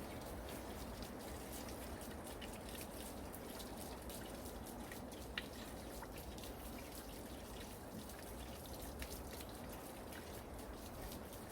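Water trickling and dripping steadily: an even rush with many small, sharp ticks of drops.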